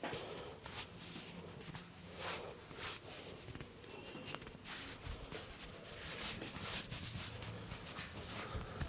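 Soft, irregular swishing of hands rubbing and kneading a person's back during a massage.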